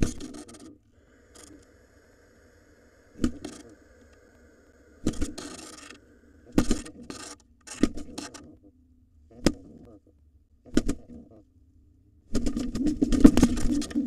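Birds moving about in a wooden nest box: sudden knocks, wing slaps and scrapes on the wood and shavings, several seconds apart. Near the end comes a longer burst of wing flapping.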